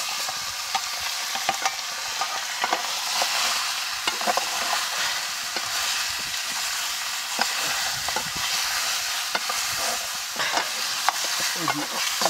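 Lamb meat frying in a pan: a steady sizzle with scattered scrapes and clicks from it being stirred.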